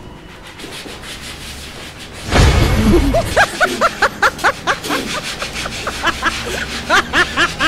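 Chalk blackboard being rubbed clean by hand: fast back-and-forth scrubbing strokes, about four a second, each with a short squeak. It starts about two seconds in with a loud first rub.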